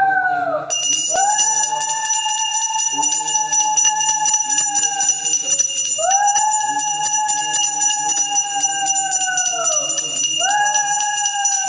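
Brass puja hand bell rung rapidly and continuously from about a second in. Over it comes a run of long conch-shell blasts, each held about four seconds, its pitch swelling up at the start and sagging at the end, with short breaths between.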